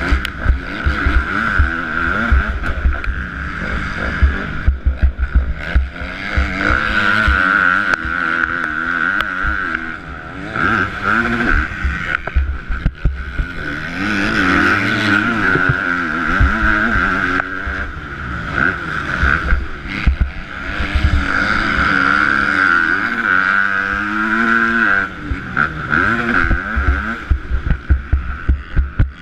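KTM 250 four-stroke motocross bike's single-cylinder engine being ridden hard around a dirt track, its pitch repeatedly climbing and dropping as the throttle is opened and shut through jumps and corners.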